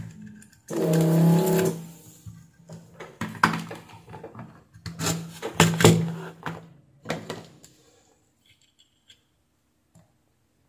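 Electric desoldering gun's vacuum pump buzzing in about three short bursts, each around a second long, sucking solder off transistor pins on a circuit board, mixed with sharp clicks and knocks as the board and tools are handled.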